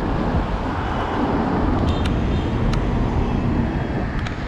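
Steady rumbling road and wind noise from riding a Xiaomi Mi 1S electric scooter through city traffic, with a few short sharp ticks about two seconds in and once more near the end.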